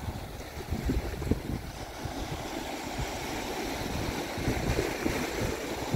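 Small waves washing and breaking on a sandy beach, with wind buffeting the microphone.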